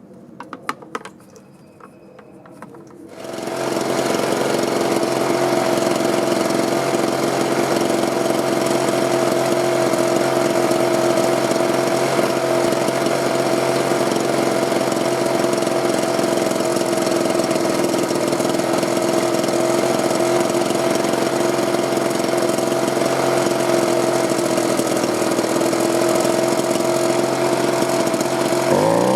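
Two-stroke leaf blower engine, fitted with a new carburetor and fuel filter, starting up after a few light clicks about three seconds in. It then runs steadily at an even pitch and revs up at the very end.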